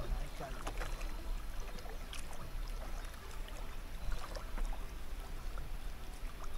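Water splashing and trickling around a small boat, with scattered light knocks and clicks over a steady low rumble.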